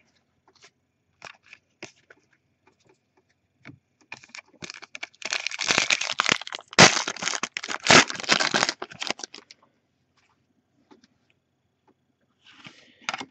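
A foil-wrapped Panini Elite basketball card pack is torn open by hand, with several seconds of crackling, crinkling foil. Before that come a few light clicks of cards being shuffled.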